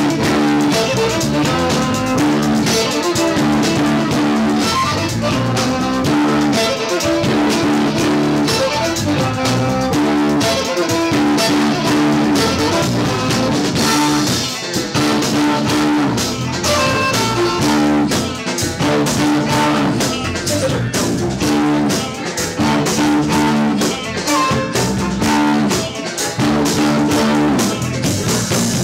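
Live rock band playing: electric guitar and drum kit, with a bowed electric violin.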